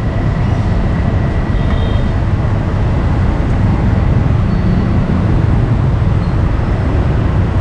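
Steady low rumble of background noise at a busy street-food stall, with a faint steady high-pitched whine throughout.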